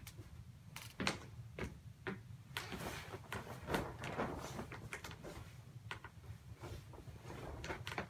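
A bedsheet rustling and swishing as it is shaken out and spread over a bed, with irregular handling knocks and thuds.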